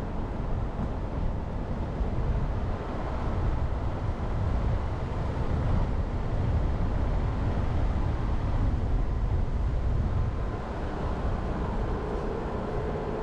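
Jeep Renegade driving along a forest road: a steady low rumble of tyres and engine, with a faint steady hum coming in near the end.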